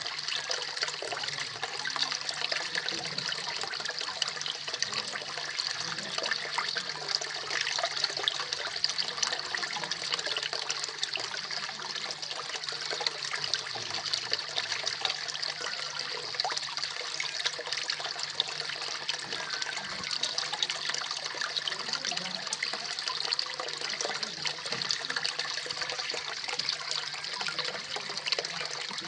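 Koi pond waterfall: water splashing and trickling steadily into the pond, with a faint low hum underneath.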